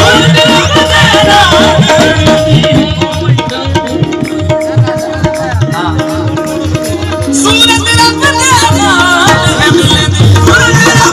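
Instrumental passage of live devotional music: tabla drumming under a long held note and a wavering melodic line, which fades in the middle and comes back strongly about two-thirds of the way through.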